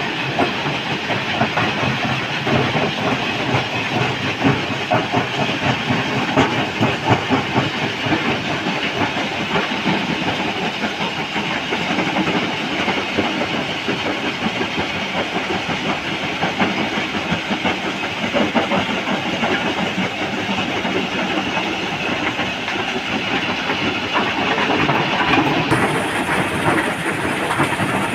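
Stone-crushing plant running under load, with a dense, continuous rattle and clatter of rock and heavy-machinery engine noise beneath it. A thin high whine joins near the end.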